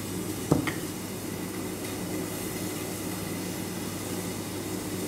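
A steady low mechanical hum of a running machine, with one sharp knock about half a second in.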